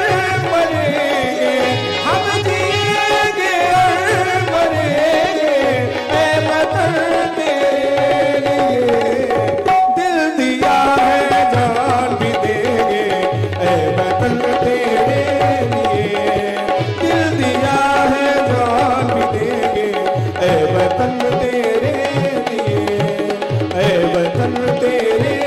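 Live Indian dance music for a stage dance: tabla-style hand drums keep a steady rhythm under a gliding melody line.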